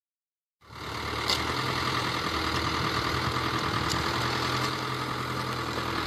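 New Holland farm tractor's diesel engine running steadily under load while pulling a disc harrow. It cuts in abruptly about half a second in.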